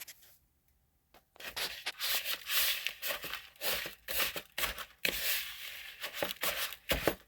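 Wooden spoon mashing and scraping softened butter and brown sugar against the side of a bowl, creaming them together. The gritty scraping comes in quick, irregular strokes and starts about a second and a half in.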